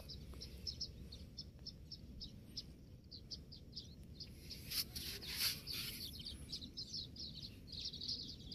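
Small birds chirping in short, high, repeated notes, a few a second, brightest about five seconds in, over a faint low rumble.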